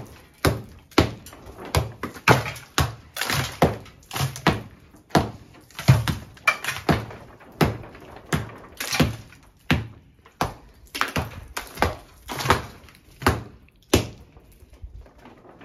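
Small hand hammer knocking crumbled old plaster off a masonry wall: a steady run of sharp knocks, about one to two a second.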